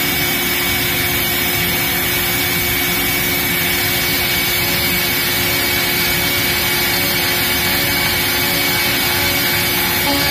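A CNC router spindle runs at 17,000 RPM, its quarter-inch two-flute down-cut end mill slotting 5 mm deep into a wooden board at 3000 mm/min. It makes a steady cutting noise with a constant high whine.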